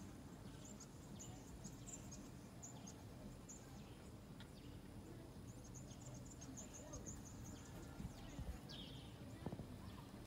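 Faint outdoor background noise with runs of short, faint high-pitched chirps.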